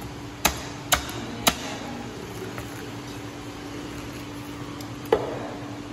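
A knife knocking against a wooden chopping block while cutting up a fish: three sharp knocks in quick succession about half a second in, then one more near the end, over a steady background hum.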